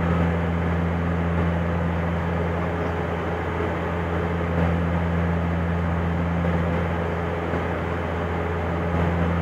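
Inside the cabin of a Dash 8 Q400 in flight: its two Pratt & Whitney PW150A turboprop engines and six-blade propellers make a steady drone with a strong low hum.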